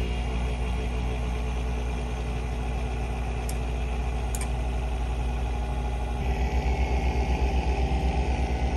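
Acer Nitro 5 laptop GPU cooling fan running with a low, rumbling drone, the noise of a worn fan that needs replacing. About six seconds in, the rumble turns into a fast pulsing and grows louder. Two faint clicks sound in the middle.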